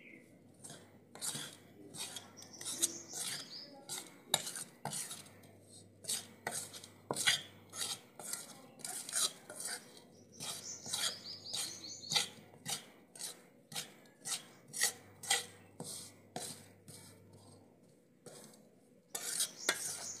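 Metal spatula stirring and scraping a dry roasted-chickpea-flour mixture around a metal kadai: repeated scraping strokes, a couple a second, with a brief lull near the end.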